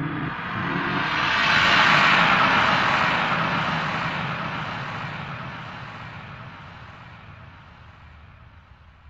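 A rushing noise, like a passing jet, that swells to a peak about two seconds in and then fades slowly away.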